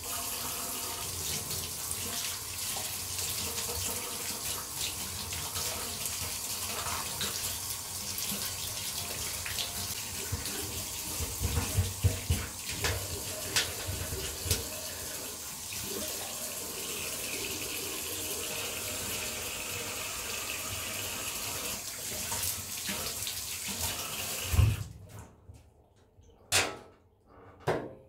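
Tap water running steadily into a bathtub drain while the drain is rinsed and scrubbed, with a few knocks in the middle. The water stops abruptly near the end, followed by a few sharp knocks.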